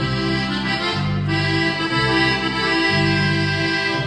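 Accordion playing an instrumental fill over electric bass notes that change about once a second, in a regional Mexican corrido-style song.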